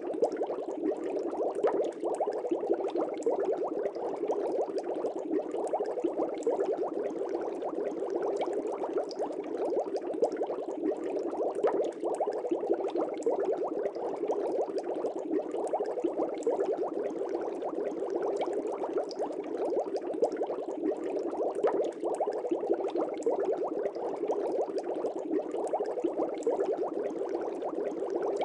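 Steady aquarium bubbling: a dense stream of small air bubbles rising and burbling through water, unchanging throughout.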